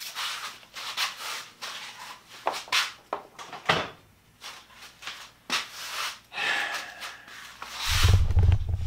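Handling noise as a Dewalt angle grinder is taken off the treadle grinder's stand: irregular rubbing and scraping with a few sharp knocks. Near the end a low rumble starts.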